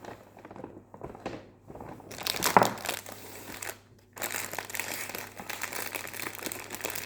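Packaging being handled and crinkling: irregular rustling with one sharper knock about two and a half seconds in, then steadier, denser crinkling from about four seconds in.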